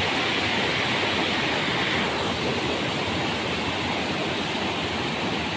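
Steady rush of a rocky mountain stream running fast over stones; the hiss eases a little about two seconds in.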